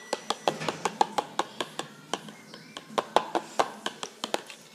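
A utensil clicking against a bowl in quick repeated strokes, about five a second, as a mixture is stirred; the strokes thin out midway, then pick up again.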